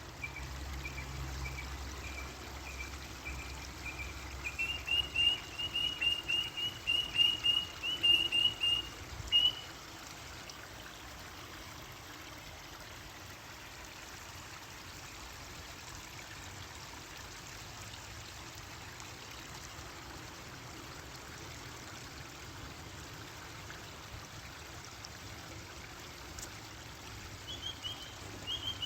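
A bird calling in a rapid series of short, repeated notes that step up in pitch about four and a half seconds in and stop near ten seconds, over a steady hiss of running water.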